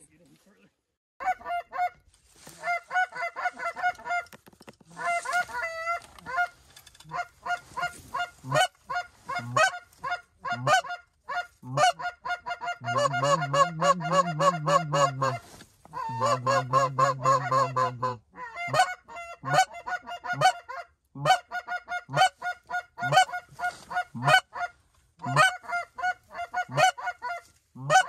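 Goose calling: rapid, repeated high honks and yodels in quick runs, with two longer, lower drawn-out calls in the middle.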